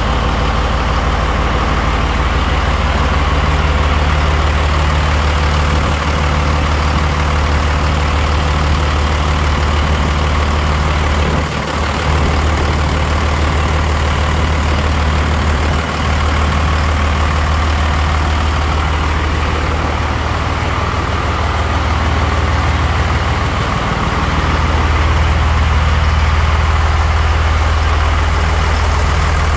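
Diesel engine of a Scania P82H truck idling steadily after a rebuild. Its note dips briefly twice in the middle and rises slightly a little over 20 seconds in.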